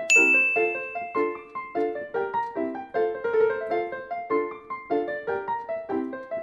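Background piano music: a light, bouncy melody of short repeated notes, about three or four a second. A single bright, bell-like ding sounds at the start and rings for about a second and a half.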